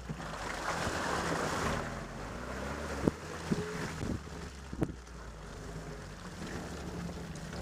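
Military jeep engine running at low speed on a bumpy dirt track, with wind buffeting the microphone. A few sharp knocks and rattles come about three and five seconds in as the vehicle shakes over the ruts.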